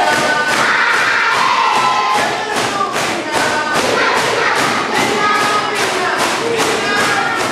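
A group of children singing together over a steady beat of sharp strokes, about three a second.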